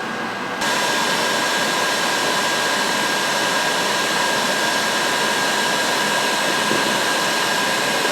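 An electric blower-type tool running steadily with a high whine over a rushing hiss, coming up to full about half a second in.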